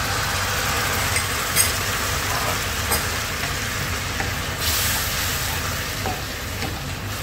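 Chopped onion and garlic sizzling in oil and butter in a frying pan as chicken stock is poured in and stirred with a wooden spoon. A steady frying hiss with a few light clicks and scrapes of the spoon against the pan.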